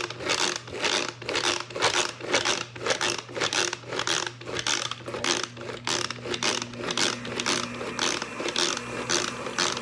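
Manual pump-action food chopper being pumped rapidly, about two to three strokes a second, its spinning blades chopping onion, jalapeño and garlic to a coarse chop.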